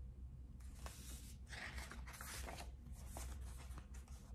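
Faint rustling of a paperback picture book's pages as a page is turned, in several short bursts over about three seconds, over a low steady hum.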